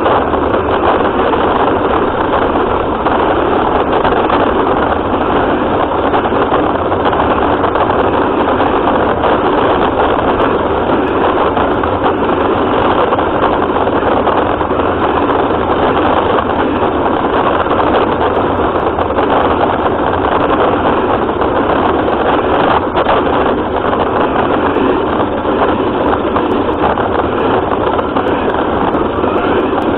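Remote-control car's motor and drivetrain running steadily, heard through a camera mounted on the car.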